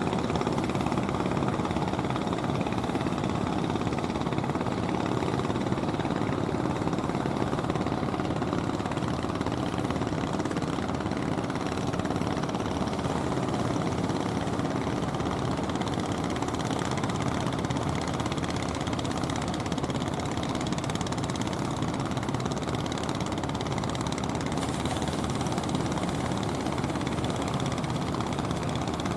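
Motor boat's engine running steadily, an even rumble with no change in speed.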